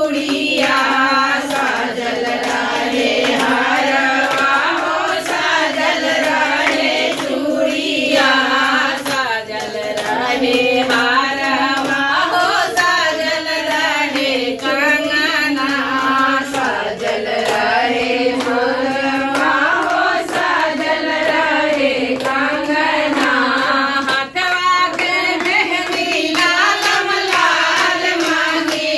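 A group of women singing a devotional folk song (devi geet to Avsan Maiya) together, keeping time with hand claps.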